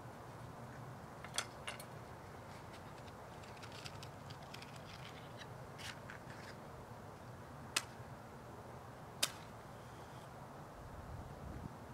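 Faint steady hiss with a few small clicks and taps as the Svea 123 stove's valve is closed and handled, then a match struck sharply about nine seconds in.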